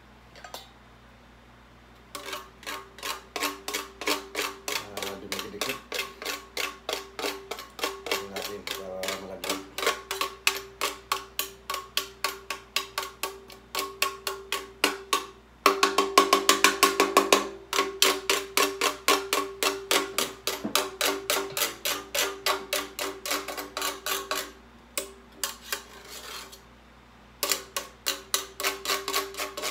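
Stainless steel box grater being rubbed in quick strokes, about two to three a second, each stroke rasping and making the metal ring. A faster, louder run of strokes comes about halfway through, and the grating stops briefly near the end before starting again.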